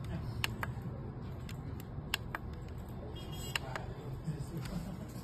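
Keypad buttons on a Noyafa NF8108-M cable tester clicking as they are pressed and released: three pairs of sharp clicks, each pair about a second and a half after the last, over a steady low background rumble.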